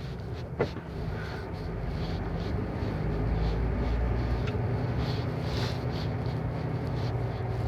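HGV lorry's diesel engine running with road noise, heard from inside the cab, growing a little louder about three seconds in. A single sharp click about half a second in.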